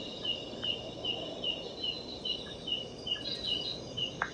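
Night insects chirping: a short, high chirp repeating evenly about two and a half times a second. A single faint click comes near the end.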